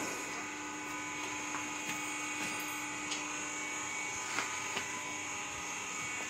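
Steady machine hum from a truck tyre changer, with a few light metallic clicks as the wheel is handled.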